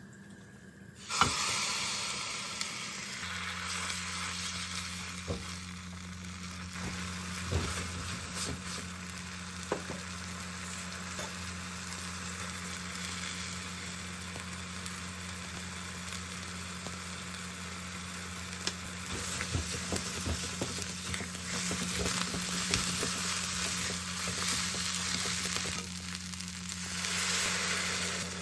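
Rehydrated seaweed hitting hot sesame oil in a pot and sizzling steadily as it is stir-fried, with occasional light taps of the stirring utensil. Near the end a louder swell of hissing comes as broth is ladled into the hot pot.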